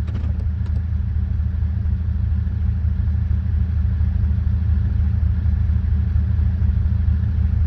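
Mahindra Thar 4x4 SUV's engine running steadily at low revs, a constant low hum.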